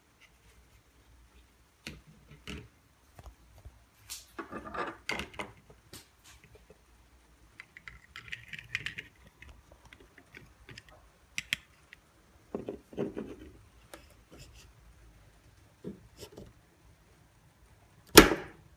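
Handling noises from a Survive! Knives GSO neck knife and its moulded kydex sheath: scattered clicks, taps and light scrapes. Near the end comes one sharp, loud click as the knife is pushed into the sheath and snaps into its retention.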